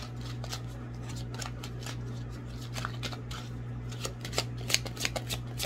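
Tarot cards being shuffled by hand: a run of quick papery card clicks that grows louder and denser toward the end.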